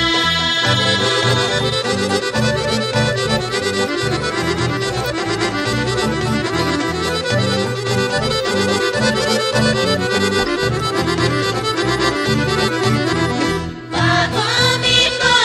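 Accordion-led traditional folk music over a steady, rhythmic bass. About fourteen seconds in, the music breaks off for a moment and singing begins.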